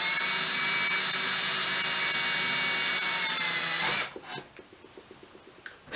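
Cordless drill boring a small hole through a wooden board, its motor whining at a steady pitch. The motor winds down and stops about four seconds in.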